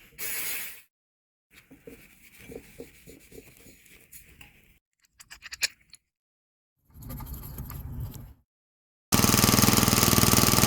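A brief spray hiss, then scraping and clicking of small metal parts in short separate bursts. About nine seconds in, a snowblower's small engine cuts in, running steadily and loudly after its carburettor jet has been cleaned.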